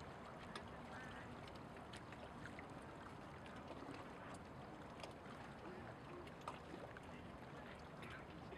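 Faint bay-shore ambience: small waves lapping at the water's edge over a steady low hiss of distant city noise, with scattered small ticks and splashes.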